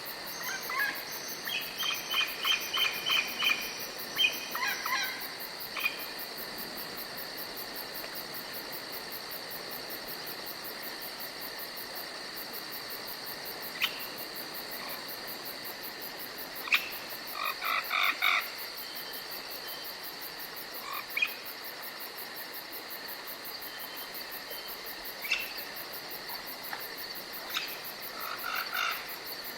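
Forest ambience: a steady, high insect chorus like crickets trilling all through. Over it come bursts of quick, repeated bird notes: a run of rapid notes in the first few seconds, another around the middle, and a short one near the end, with single chirps scattered between them.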